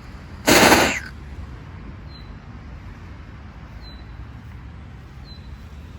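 A single loud explosion bang about half a second in, cutting in sharply and dying away within half a second.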